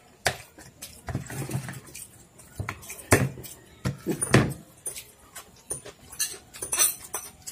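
Two people eating noodles fast: forks clicking and scraping on ceramic bowls and plates, with noisy slurping and chewing. There are louder mouthfuls about one, three and four seconds in.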